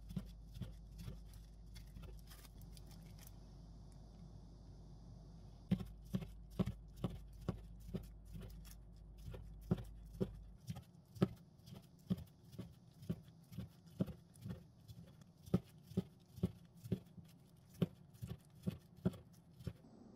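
Kitchen knife slicing through a gimbap roll and knocking on a plastic cutting board. There is a sharp tap with each cut: a few at first, a pause, then a steady run of about two a second.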